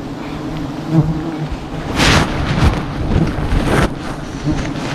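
Giant honey bees buzzing in a steady, low swarm hum around the hunter, with two loud rushes of rustling and handling noise, about two seconds in and again just before four seconds.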